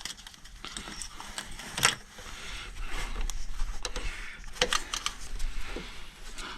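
Handling noise from work on a car engine: irregular light clicks and clinks, with a sharper click about two seconds in and a few more near the middle.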